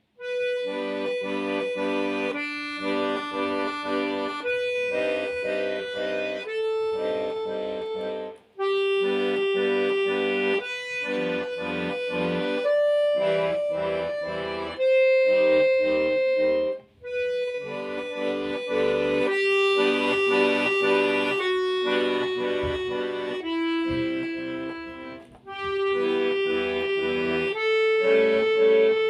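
Bayan (Russian chromatic button accordion) played solo: a melody over chordal accompaniment, beginning after a pause, with three short breaks between phrases.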